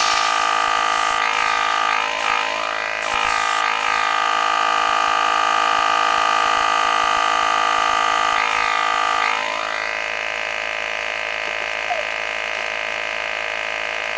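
Small airbrush compressor motor running with a steady whine. A few short wavering sweeps in pitch come in the first few seconds and again about eight seconds in, and about ten seconds in the sound drops slightly and its tone changes.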